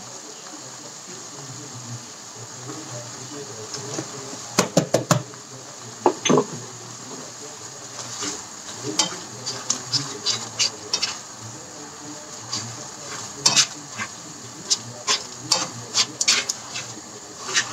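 Chili spice paste sizzling quietly in a nonstick wok while a plastic spatula stirs it, scraping and tapping against the pan in short bunches of strokes.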